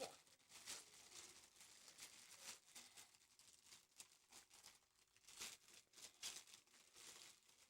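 Faint rustling and crinkling of packaging as computer speakers are handled and unwrapped, in a string of soft, irregular rustles.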